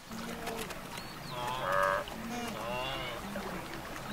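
A herd of wildebeest and zebras calling at a watering place: a run of low grunts under a few louder, higher calls that waver in pitch, the loudest about two seconds in.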